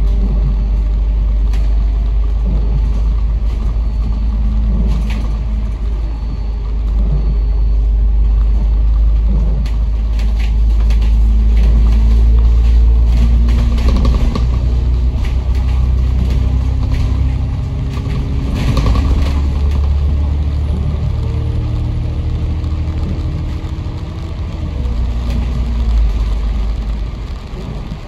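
Bus engine and drivetrain heard from inside the moving bus: a steady low rumble, with the pitch rising as it pulls away and accelerates through the middle, and scattered sharp clicks.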